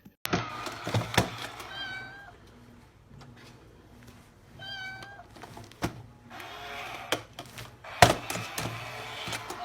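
A cat meowing: short calls about two seconds and five seconds in, and a lower one later, with several sharp knocks or thumps, the loudest about eight seconds in.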